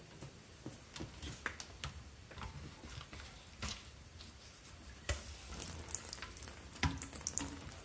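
Faint clicking and scraping of pliers on plastic as an old reverse osmosis membrane is worked loose and pulled out of its housing, with a few sharper knocks along the way.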